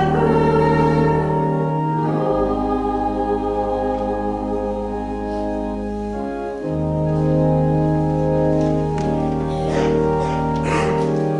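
Church organ playing a hymn in slow, sustained chords, the bass notes changing every few seconds.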